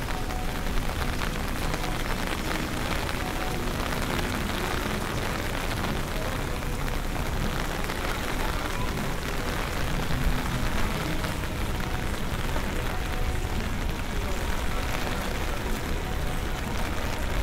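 Steady rain falling on pavement and surfaces as a hurricane's weather sets in, with a constant low rumble of wind on the microphone.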